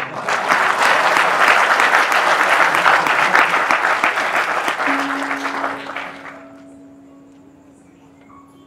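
Audience applauding, loud for about five seconds and then fading out by about six seconds. Soft sustained keyboard notes begin about five seconds in.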